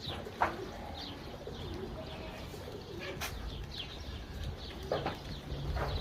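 Birds calling: short, high chirps repeating throughout, with a few sharp clicks.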